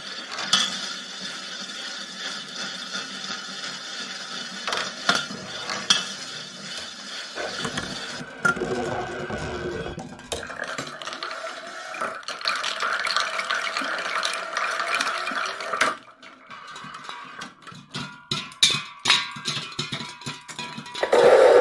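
Marbles rolling and rattling through a homemade marble run built from everyday objects, clattering in a plastic bowl and against metal cans. A steady rolling rattle with sharp clicks runs through it, and near the end comes a quick run of knocks and clinks.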